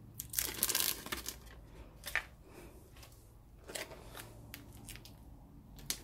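Self-adhesive contact paper being peeled from its backing and handled: a crackling rustle about half a second in, then scattered faint crinkles and clicks of the plastic film.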